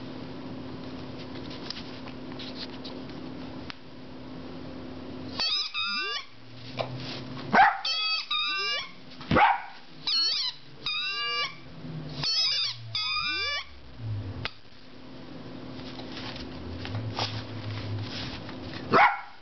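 A ten-week-old puppy barking and yipping in frustration at a rubber squeaky pig toy: a string of about eight short, high, wavering calls over some eight seconds, then a pause and one more sharp call near the end.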